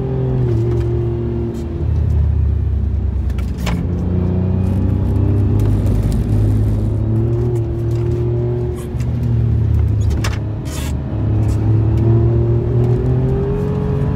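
Alfa Romeo Giulia Quadrifoglio's twin-turbo V6 heard from inside the cabin, its note climbing slowly under throttle, dropping a couple of times as the driver lifts or shifts, then climbing again. A few short sharp clicks cut through it.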